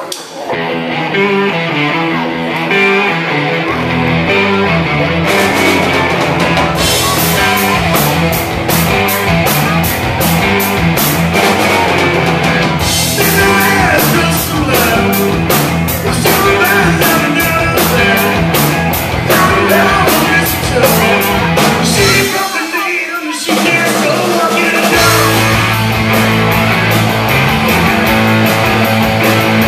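Live rock band playing: electric guitar opens nearly alone, then bass comes in about four seconds in and the drum kit with cymbals a couple of seconds later. The low end briefly drops out about three-quarters of the way through before the full band comes back in.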